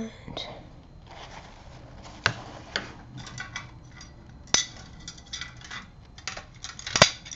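Art supplies being handled at a desk: a series of sharp clicks and taps of small hard objects, the loudest about two, four and a half and seven seconds in, with soft rustling between.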